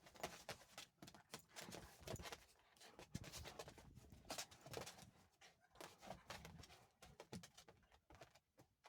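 Dogs play-wrestling: faint, busy scuffling with many quick, irregular knocks and clicks.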